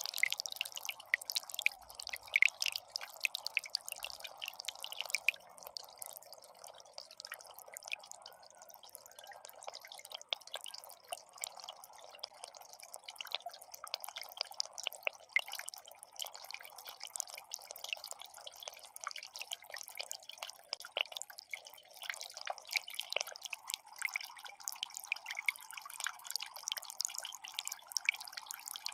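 Water from a miniature concrete waterfall falling into its basin: a steady trickle with many irregular drips and splashes.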